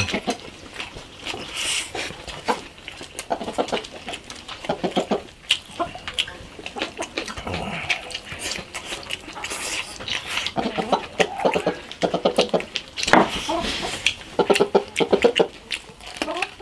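Two people eating braised pork belly and rice with loud, wet chewing and lip-smacking, together with sharp clicks of chopsticks against the bowls.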